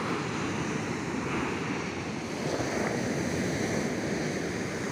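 Ocean surf breaking and washing up the shore as a steady rushing wash.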